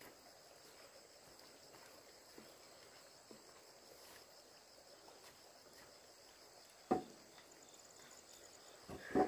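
Steady high-pitched drone of insects in the surrounding vegetation, with two short, louder sounds in the last few seconds.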